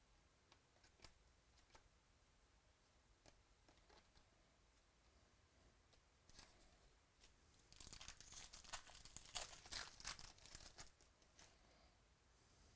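Wrapper of a pack of baseball cards being torn open and crinkled. A few faint clicks come first, then a burst of crackling and tearing starts about eight seconds in and lasts about three seconds.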